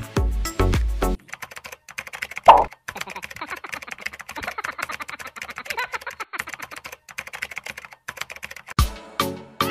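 Background music with a heavy bass beat for about a second. It gives way to a fast, dense run of light clicks like typing on a keyboard, with one loud short hit about two and a half seconds in. Music comes back near the end.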